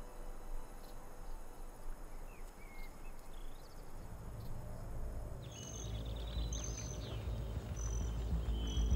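Outdoor forest ambience: a steady hiss with a few short chirps. From about five seconds in, high chirps repeat roughly once a second over a low rumble that slowly grows.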